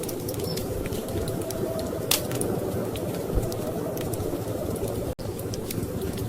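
Wood fire crackling, with sharp pops here and there, over a steady low rumble of storm wind. The sound cuts out for an instant about five seconds in.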